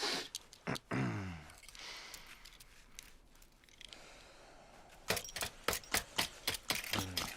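A small metal knife blade rapidly tapping and scraping against rock in a quick run of sharp clicks, with a man's short strained grunts.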